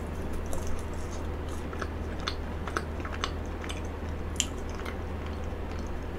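A person chewing a mouthful of frozen cheesecake that has thawed slightly, close to the microphone. Scattered small clicks and mouth smacks run throughout over a steady low hum.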